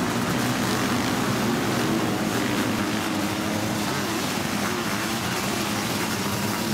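A pack of sidecar motocross outfits' motorcycle engines running and revving together in close company. Several engine notes overlap and rise and fall against one another at a steady loud level.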